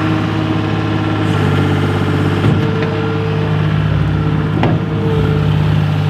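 John Deere 250 skid steer's diesel engine running steadily under the operator's throttle, its note stepping up about a second and a half in as the machine works. Two short knocks sound partway through.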